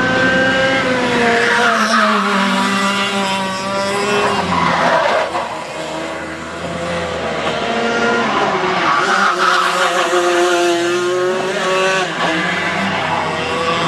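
Racing go-kart engines running hard as karts lap the track, their pitch falling and rising again and again, with more than one kart heard at once.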